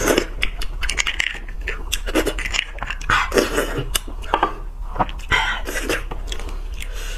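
Metal spoon scraping and clicking against a roasted beef marrow bone as the marrow is scooped out, in irregular sharp clicks and short scrapes.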